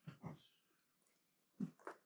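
Lego bricks being handled and pressed together: four short light clicks and knocks, two near the start and two more about one and a half seconds in.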